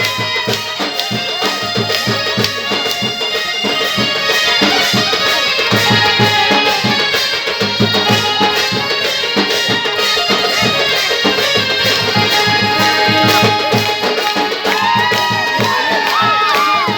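Background music in a traditional folk style, with a steady drum beat under a sustained melody. Sliding melodic notes come in near the end.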